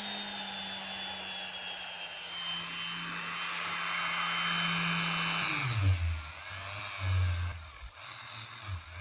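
Dremel rotary tool with a hook-and-loop sanding pad running at a steady high-pitched whine, then switched off about five and a half seconds in, its pitch falling away as it winds down. Low irregular thumps and knocks follow.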